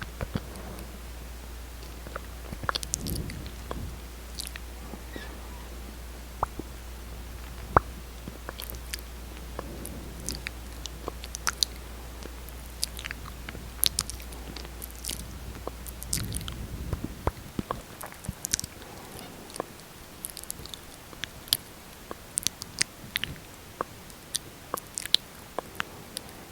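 Close-miked lip sounds: irregular wet smacks and sharp little clicks of lips parting and pressing together, as lipstick and gloss are worked in. A low hum underneath stops about two-thirds of the way through.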